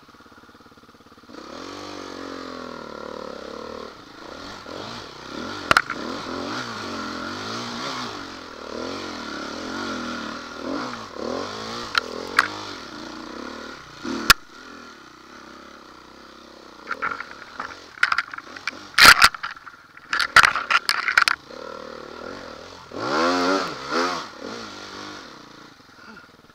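Dirt bike engine revving up and down under load on a rough trail. Sharp knocks and clatter come from the bike over the bumps, loudest in a burst of rattling strokes past the middle.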